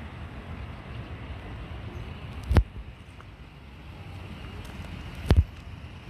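Wind buffeting the microphone: a steady, gusting low rumble, with two sharp thumps about two and a half and five seconds in.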